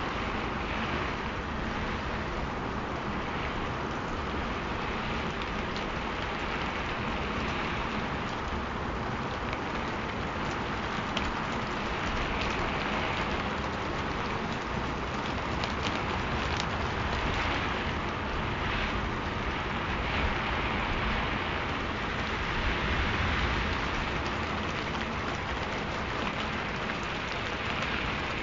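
Steady rain falling on a surface: an even hiss with scattered sharper drop ticks, a few more of them around the middle.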